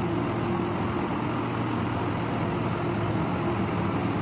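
A steady mechanical hum, a constant low drone over an even rushing noise, with no change throughout.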